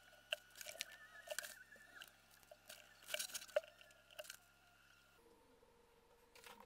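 Quiet room tone with a faint steady electrical whine and scattered small clicks and rustles, the busiest stretch about three seconds in. The whine stops about five seconds in.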